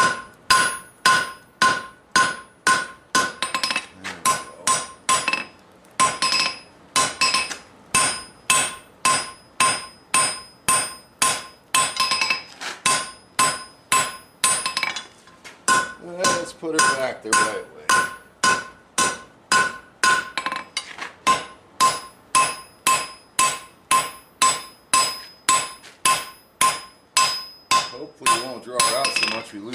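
Hand hammer striking a hot steel bar on an anvil, about two blows a second with a few short pauses, each blow setting the anvil ringing. The smith is bending back a curve in the bar that was forged the wrong way.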